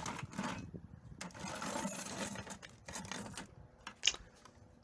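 Power tools and their cords rattling, scraping and knocking against a plastic bucket as a corded reciprocating saw is lifted out, with a sharp knock about four seconds in.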